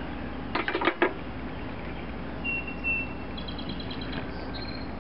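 A quick cluster of sharp metal clicks and clinks about half a second to a second in, from a screwdriver and bolt as the carburetor is unbolted from a small engine. A few short, thin, high whistles follow later.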